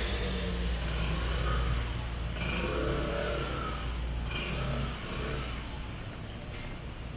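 Motor vehicle engine running close by on a city street, a low rumble that drops away about five seconds in, over general street noise.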